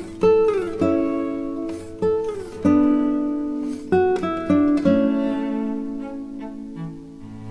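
Background music on plucked acoustic guitar: single notes and chords struck one after another, a few of them sliding down in pitch.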